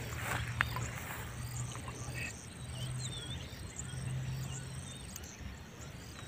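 Outdoor ambience: an insect trilling steadily at a high pitch until about five seconds in, with a few short chirping bird calls over it and a low hum that comes and goes.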